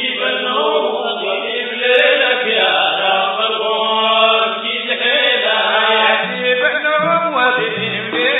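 A group of men chanting in unison, singing a Sudanese Sufi madih, a praise song for the Prophet.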